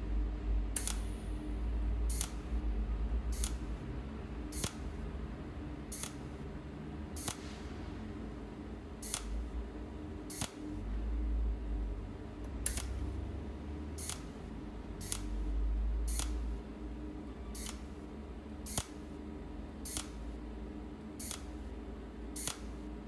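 Cold welding machine's tungsten-needle torch firing single weld pulses, a sharp snap about every 1.2 seconds, each pulse laying one overlapping spot weld on a steel bearing ring. A low rumble swells and fades underneath.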